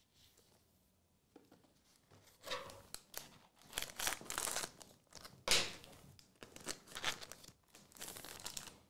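Foil trading-card pack being torn open and crinkled, a run of crackly bursts starting about two and a half seconds in, the sharpest tear about halfway through.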